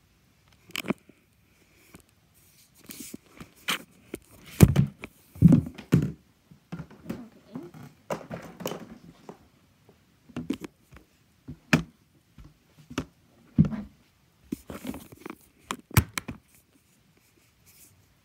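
Handling noise: a string of irregular knocks, taps and rubs as the recording phone is picked up and moved about, loudest a little before the middle.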